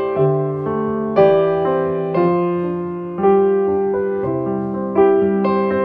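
Background piano music: a slow piece of single notes and chords, each struck and left to ring and fade, a new one about every second.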